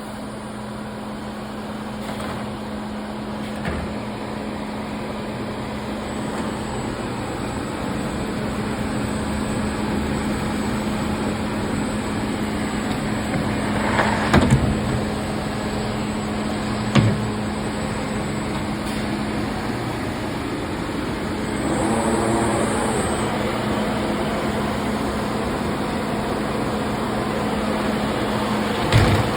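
Thermwood CNC router running with a steady mechanical hum, with a few sharp knocks: two in the middle and one near the end.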